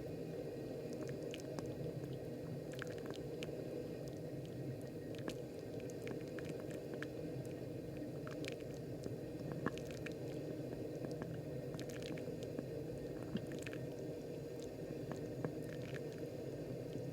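Moccamaster KBGV Select drip coffee maker brewing, with hot water running onto blooming coffee grounds as a steady low wet churning and faint scattered small pops and crackles.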